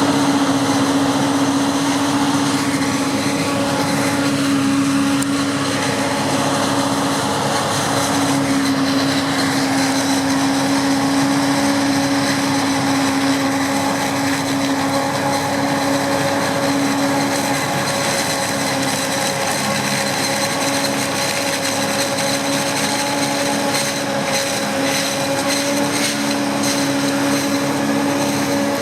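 Maize-harvesting farm machinery running steadily: a constant engine drone with a held whine over it, with no change in pace.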